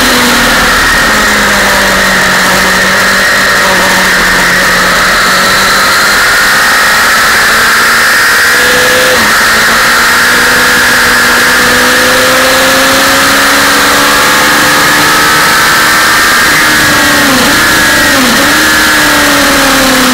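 Sport motorcycle engine running hard at speed, under heavy wind rush on the onboard camera. The engine note rises and falls slowly, and twice near the end it dips sharply and comes straight back.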